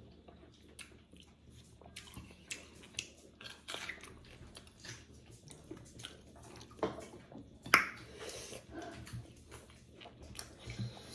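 A person chewing buffalo-meat jhol momo, dumplings in soup, close to the microphone: wet chewing and mouth smacks, with a sharp click about two thirds of the way through.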